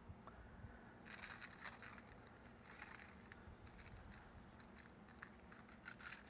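Faint shaking of a plastic spice-rub shaker bottle, dry seasoning sprinkling out in two short bursts, about a second in and again about three seconds in, with small clicks between.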